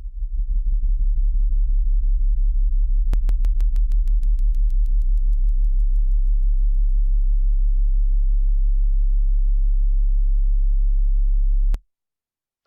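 Loud, steady low electrical hum with a stack of overtones, fading up at the start and cutting off suddenly near the end, with a quick run of sharp clicks about three seconds in.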